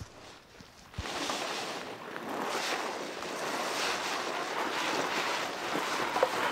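Inflatable dinghy being dragged on a rope across a pebble beach: a steady, grainy scraping and crunching of the hull and footsteps over the stones, starting suddenly about a second in.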